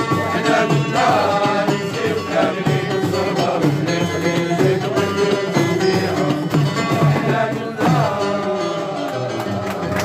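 Live music: a voice singing over instrumental accompaniment.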